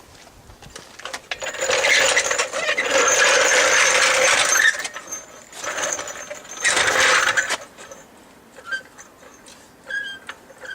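Ridgid 18V brushless half-inch impact wrench running in two long bursts, hammering to loosen a bolt. A few short high chirps follow near the end.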